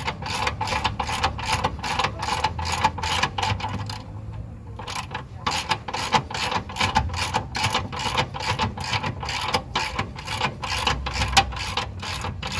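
Hand ratchet with a 19 mm socket clicking rapidly, about four clicks a second, as it is swung back and forth to drive in a suspension bolt. The clicking breaks off for about a second and a half partway through, then resumes.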